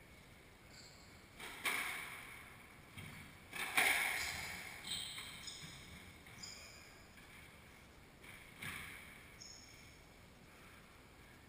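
Squash rally: a squash ball smacking off racket and walls, a few sharp hits that echo around the court, the loudest about four seconds in. Short high squeaks of sneakers on the hardwood floor come in between.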